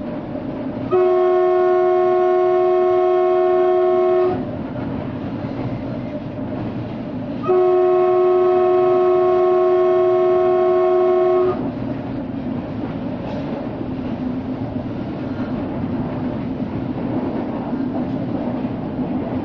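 Train horn sounded in two long blasts of about four seconds each, several notes at once, over the steady rumble of the train running along the track.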